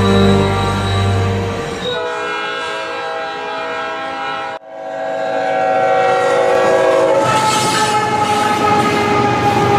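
Diesel freight locomotive air horns blowing long steady chords as trains pass, with engine rumble at first. The horn cuts off abruptly about four and a half seconds in and another sounds straight after. Near the end a different horn sounds over the rushing clatter of train wheels on rail.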